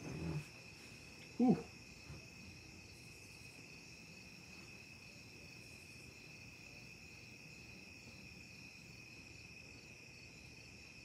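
Steady, high-pitched insect chirping in the background. About a second and a half in comes a short throat sound from the man eating the pepper, with some mouth noise at the very start.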